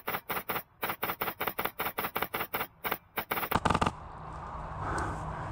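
Airsoft gun firing a rapid string of shots, about five a second, ending in a longer burst about three and a half seconds in.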